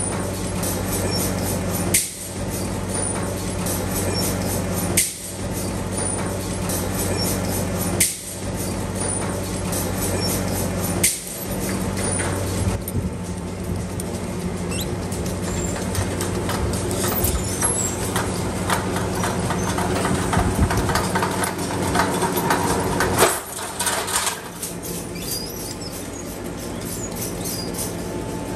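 Chain-driven stick-feeding machine running steadily with a low electric hum. About every three seconds for the first ten seconds or so there is a sharp click and a brief dip, and there is one more near the end.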